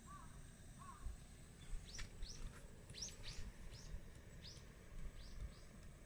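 Wild birds calling: a few lower arched calls at the start, then a run of short high chirps, about two a second, from about two seconds in, over a steady low rumble.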